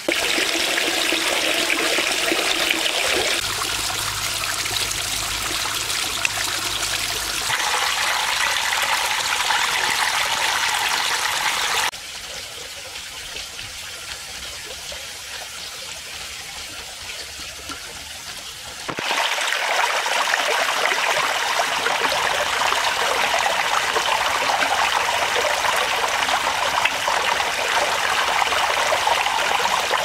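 Water from a small concrete waterfall trickling in thin streams over a ledge and splashing onto pebbles and into the pond. The sound drops to a quieter trickle about twelve seconds in and comes back fuller about nineteen seconds in.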